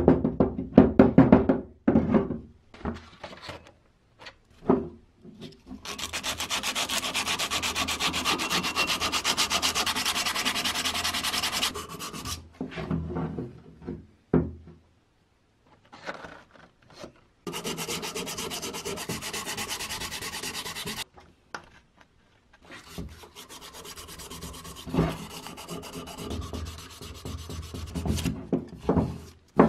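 Sandpaper rubbing fast over the metal body of an antique Universal food chopper, in long stretches of quick, even strokes with short breaks between them. A few sharp knocks of the part being handled come in the first two seconds.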